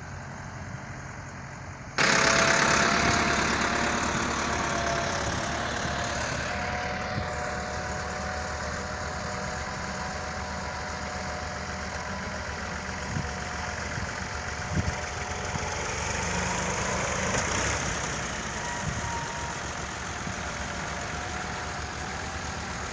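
Engine of heavy earthmoving machinery running steadily, with a thin whine over its hum. The sound jumps suddenly louder about two seconds in, then settles.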